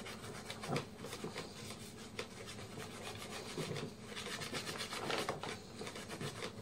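Tissue rubbing and wiping old thermal paste off a laptop's processor and heatsink: a run of faint scrubbing strokes.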